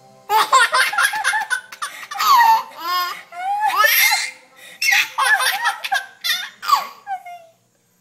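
A baby laughing in repeated bouts of laughter and giggles, with short breaks between bouts.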